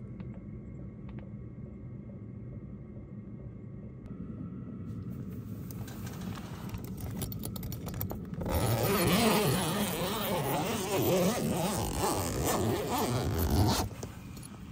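Canvas truck-tent door zipper being unzipped in one long rasping pull of about five seconds, starting a little past halfway and stopping suddenly near the end. Before it, a low steady hum with a few light clicks and rustles.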